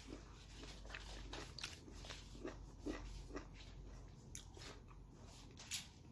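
Faint chewing of crisp, crunchy persimmon slices: a run of short, soft crunches about every half second, with a louder crunch of a fresh bite near the end.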